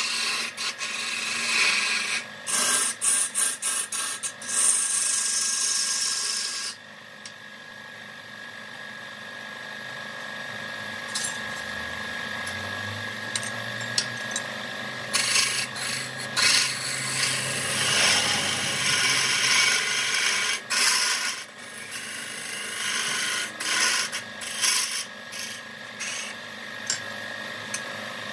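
Wood lathe with a turning tool scraping against the spinning wood, loud in uneven spells with a quieter stretch in the middle, over a faint steady machine whine.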